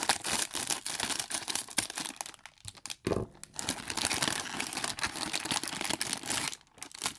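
Plastic blind-bag packaging crinkling and tearing as it is opened, with a louder crunch about three seconds in.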